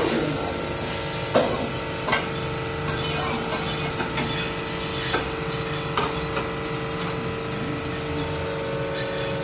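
Chicken and spice masala frying and sizzling in a stainless-steel kadai while a steel spatula stirs it, knocking and scraping against the pan a few times. A steady hum runs underneath.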